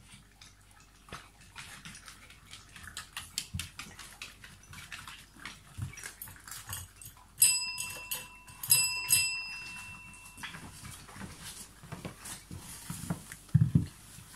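A dog strikes a tabletop service bell with its paw, giving several quick dings in two bursts about a second apart that ring on for a moment; the bell is its signal for food. Before the bell, dogs crunch kibble from a bowl, and near the end a bowl lands on the tiled floor with a thud.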